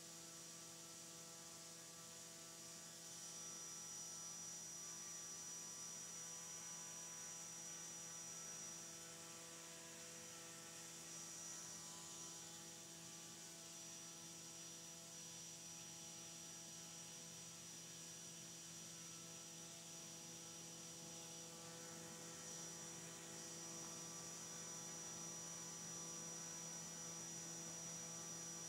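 Brushless motor and drone-scale propeller on a thrust test stand, running steadily at about 5,000 RPM: a faint, even hum with a thin high tone above it.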